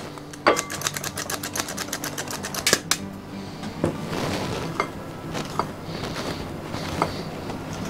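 Metal hand-held flour sifter being worked, a fast even run of clicks, about nine a second, for roughly two and a half seconds. Then a wooden spoon stirs flour into the wet mixture in a glass bowl: a soft scraping with a few knocks against the bowl.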